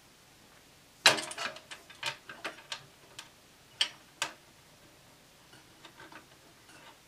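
Sharp metal clicks and taps as a coverstitch binder attachment and its thumbscrews are set into place on the sewing machine bed. A loud click about a second in opens a run of quicker taps, the last of them just after four seconds, and a few faint ticks come near the end.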